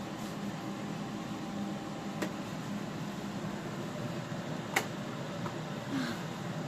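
Steady mechanical hum of a running appliance such as a fan or air conditioner, with a light click about two seconds in and a sharper, louder click near five seconds.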